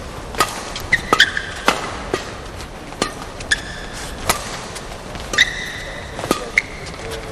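A men's singles badminton rally: sharp cracks of rackets hitting the shuttlecock about once a second, with short squeaks of court shoes on the floor between shots, over hall ambience.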